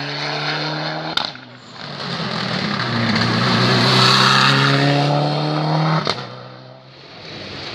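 Rally cars driving flat out on a tarmac special stage, passing one after another. A car's engine note climbs as it accelerates toward and past the microphone, loudest about four seconds in. The sound breaks off abruptly about a second in and again near six seconds, where the clips are cut together.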